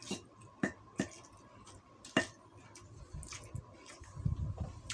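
Metal spoon and fork clinking and scraping against a plate of rice, four sharp clicks in the first half, followed by softer, quicker low sounds of eating near the end.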